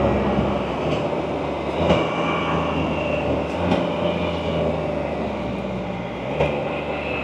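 Can-Am Spyder three-wheeled motorcycle's engine running steadily on the road, with wind rushing over the helmet microphone. The engine note shifts about two seconds in and again near the end.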